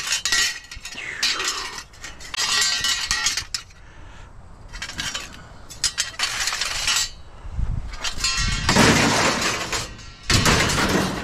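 Pieces of scrap metal clanking and clattering as they are handled and moved, in a series of separate bursts with a metallic ring, loudest in the last few seconds.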